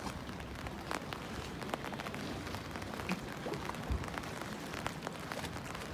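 Steady rain falling, with scattered sharp ticks of individual drops and a single low thump about four seconds in.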